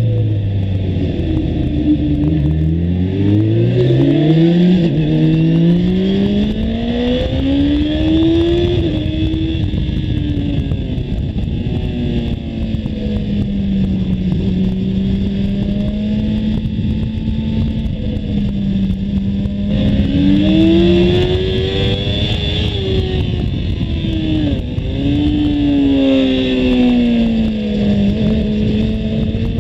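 Kawasaki ZX-10R's inline-four engine heard from on board, pulling away and climbing in pitch under acceleration, then holding a steady note before dropping about 25 seconds in and rising again.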